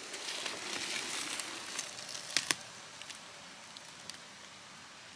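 Dry grass and leaves rustling and crackling. The rustling is loudest over the first two and a half seconds, with two sharp snaps close together about two and a half seconds in, then goes on more faintly.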